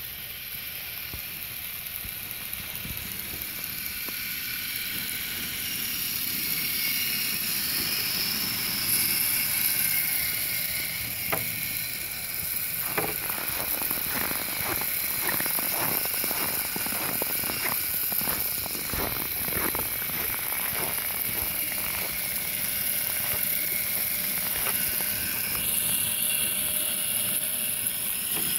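Radio-controlled crawler truck on 3D-printed plastic snow tracks, its electric motor and gears giving a steady high whine. From a little before halfway in until near the end, the tracks and drivetrain clatter with rapid, irregular clicking as it crawls through snow.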